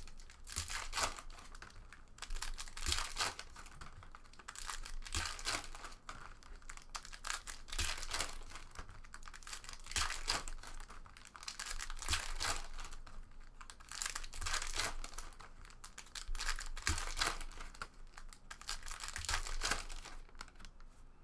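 Shiny trading-card pack wrappers being crinkled and torn open by hand, in repeated bursts every second or two, as packs of 2016 Panini Contenders Draft football cards are opened and the cards slid out.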